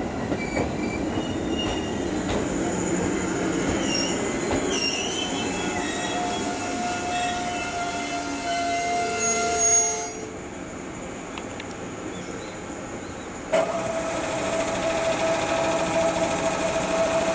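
211-series electric train running into the station and braking, its wheels and brakes squealing in several high tones. After about ten seconds the noise drops away as it comes to a halt. A few seconds later a steady mechanical hum with a clear tone starts abruptly from the stopped train.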